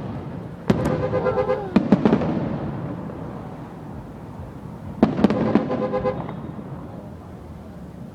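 Aerial fireworks going off: a cluster of sharp bangs about a second in and another about five seconds in, each fading out in a long rumbling tail.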